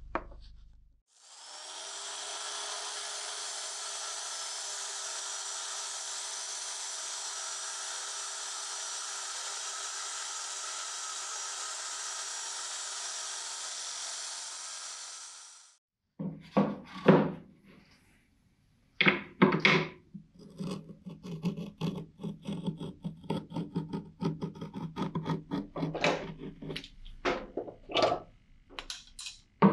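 A narrow belt file sander running steadily, grinding the steel edge of a billhook for about fifteen seconds before it winds down. Then irregular short scraping strokes and knocks.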